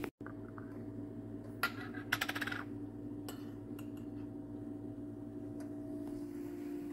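A metal teaspoon clinking against a small glass jar and its lid: one tap about one and a half seconds in, a quick rattle of clinks around two seconds in, then a few scattered light taps, over a steady low hum.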